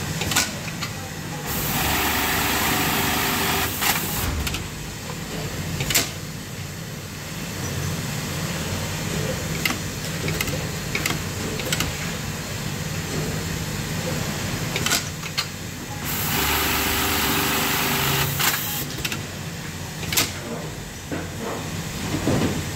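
Rizol programmable pattern sewing machine stitching a leather work-boot upper clamped in a template, in two runs of about two and a half seconds each, the second about two-thirds of the way through. A steady low machine hum runs between the runs, with a few sharp clicks.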